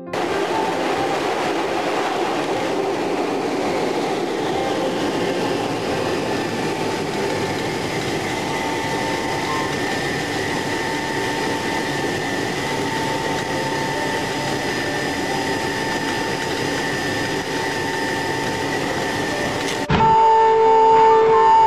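Steady engine noise of a C-141B Starlifter's four Pratt & Whitney TF33 turbofan engines, heard from inside the aircraft, with a faint steady whine over the rumble. About twenty seconds in it cuts to music with long held notes.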